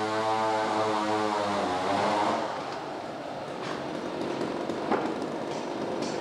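Pallet mill saw cutting through a timber, a steady pitched whine with many overtones that ends about two seconds in. Then the mill machinery runs on with a few sharp knocks of wood, the loudest past the middle.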